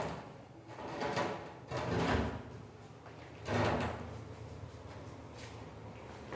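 A large Italian marble slab standing on edge being shifted by hand on a concrete floor, with a few short scrapes and shuffles.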